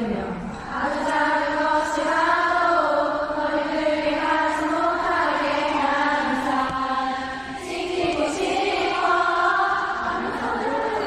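Many voices singing long, held notes together in unison, phrase after phrase, with a brief drop about half a second in and another about seven and a half seconds in.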